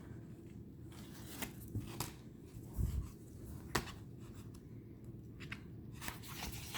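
Tarot cards being handled: a few light clicks and taps as cards are picked up, slid and set down, with one soft low thump about three seconds in.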